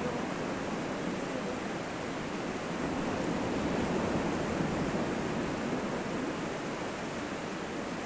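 Sea surf breaking and washing up a sandy beach: a steady rush of noise that swells slightly midway.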